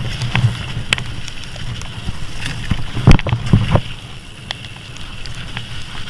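Mountain bike ridden fast over a rough dirt trail: a steady rumble with clunks and rattles as the bike hits bumps, the sharpest knocks about one second and three seconds in.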